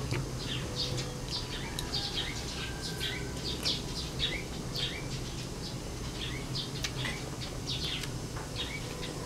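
Small birds chirping in many short, quick notes, over a low steady hum.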